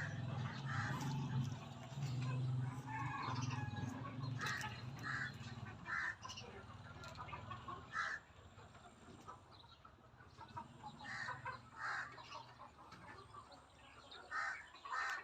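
A flock of Golden Misri hens clucking, with many short calls overlapping. A low steady hum sits under them for the first five seconds or so, then fades.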